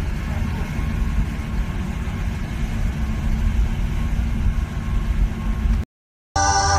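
Steady low rumble of a passing passenger tour boat's engine across the water. It cuts off abruptly near the end, and music begins.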